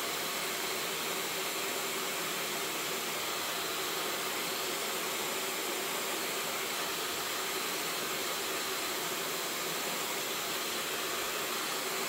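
Bopcal high-speed hair dryer running steadily: an even, unbroken rush of air with faint steady tones in it.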